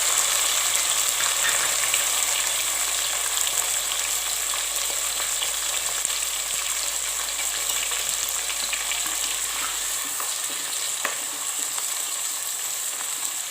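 Chopped tomatoes sizzling in hot oil with fenugreek seeds and curry leaves, stirred in the pan. The sizzle eases off slowly, with one sharp tap near the end.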